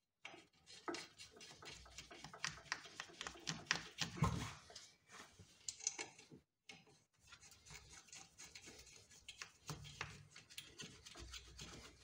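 Nuts being spun onto the bolts of a rear drum-brake hub by a gloved hand: faint, irregular small metal clicks and rubbing, with a duller knock about four seconds in.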